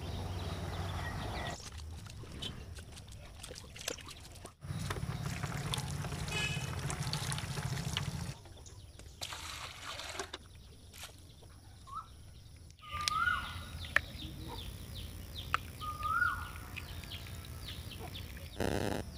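Water poured from a metal pot splashing into a steel bowl. A bird gives two short rising-then-falling calls in the second half, the loudest sounds, and there is a sharp click between them.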